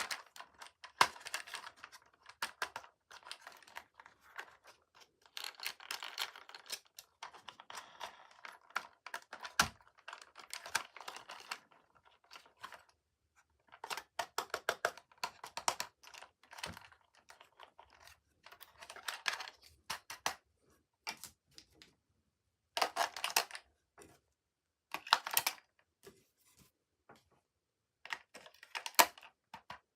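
Hands handling toy packaging and toys: irregular clicking, tapping and crinkling of plastic and cardboard, in clusters separated by short pauses, with a few louder crackling bursts in the second half.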